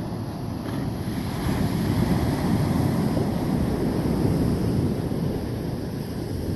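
Small ocean waves breaking and washing up a sandy beach, mixed with wind buffeting the microphone. The rushing grows louder about a second and a half in and eases again near the end.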